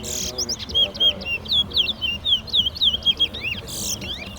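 Towa-towa (chestnut-bellied seed finch) singing a fast, varied run of short whistled notes, some rising and some falling, lasting about three seconds before it stops near the end.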